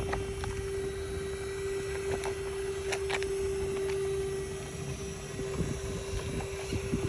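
Electric motor of a radio-controlled rock crawler whining at one steady pitch over a low rumble, with a few sharp clicks a couple of seconds in. The whine fades after about five seconds.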